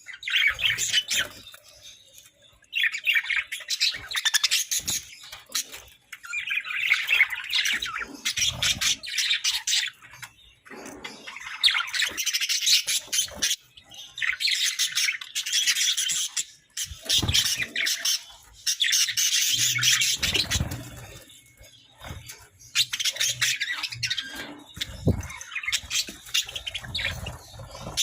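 Budgerigars chattering in repeated bouts of rapid chirps and squawks, each lasting a second or two, with short pauses between.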